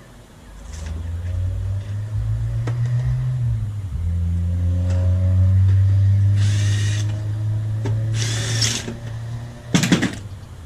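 Cordless drill running for several seconds at a steady hum, driving self-tapping screws in to hold a plate in place, its pitch shifting once partway through. It stops with a few sharp clicks near the end.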